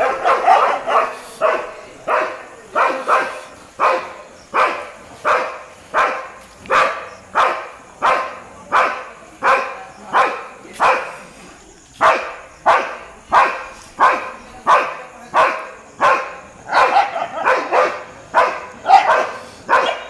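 Leashed black Labrador barking steadily at street dogs, about two barks a second, with a short pause about eleven seconds in.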